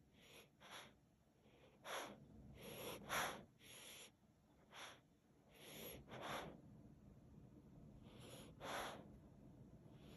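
A sleeping dog breathing out in short, faint, irregular puffs through its nose, with gaps of a second or more between some of them.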